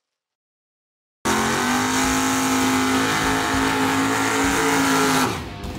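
Chevy S10 drag truck doing a burnout: engine held at high, steady revs with the rear tyres spinning. It starts abruptly after about a second of silence and drops away sharply near the end.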